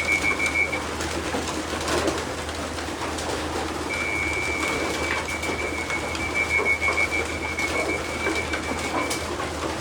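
A large flock of racing pigeons cooing and stirring as they trap into the loft. A steady high-pitched tone sounds for the first second and again from about four seconds in until near the end, over a low steady hum.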